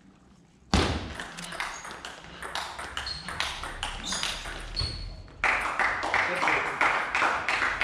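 Table tennis rally: the ball clicking off bats and table, with a couple of short high pings, over voices in a hall. From about five seconds in, spectators clap as the point ends.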